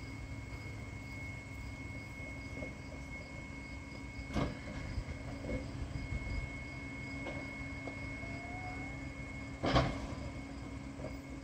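Rear-loader garbage truck running steadily at the curb while garbage cans of yard waste are emptied by hand into its hopper: two sharp knocks of cans hitting the truck or the pavement, about four seconds in and near the end, with a few lighter clunks between.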